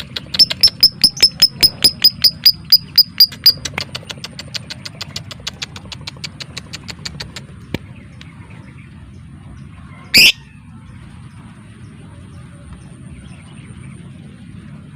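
Lovebird giving the rapid 'ngetik' (typing) call: a run of sharp chips about five a second, loud at first and then fading away over several seconds. About ten seconds in comes one short, loud, rising call.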